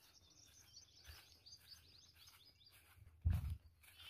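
Small birds chirping and twittering in quick high notes, thinning out after about two and a half seconds. A single brief low bump a little past three seconds is the loudest sound.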